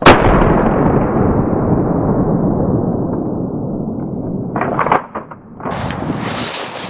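A single shotgun shot, very loud and sudden, followed by a long rolling echo that fades and grows duller over about five seconds. A few short clatters come about four and a half seconds in, then loud rustling near the end.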